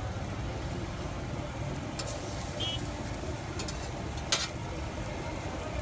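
A sandwich frying on a large flat griddle, with a metal spatula scraping and clinking against the griddle a few times. The sharpest clink comes about four seconds in. A steady low rumble runs underneath.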